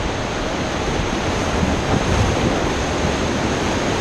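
Whitewater rapids rushing and churning around an inflatable raft, a loud, steady roar of water.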